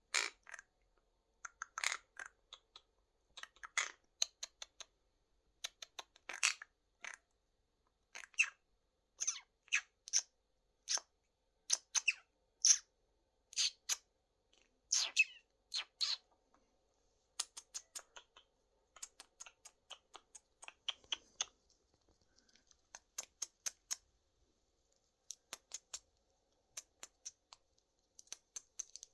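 Monk parakeet making a long string of short chirps, squawks and clicks, one after another, with brief silent gaps between them.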